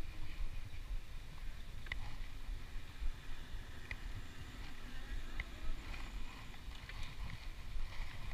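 Wind rumbling on the microphone of a moving bicycle, with road noise and a few sharp ticks scattered through.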